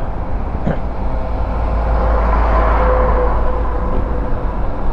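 Wind and road noise of a moving motorcycle on the rider's camera microphone: a steady low rumble, with a swell of noise that rises to its loudest about halfway through and falls away.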